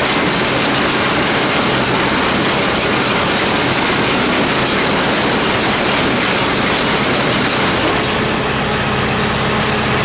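New Holland baler driven by the tractor PTO with its slip clutch bolts backed off, so the clutch friction discs slip to break loose from sitting: a steady, loud mechanical clatter that stops near the end.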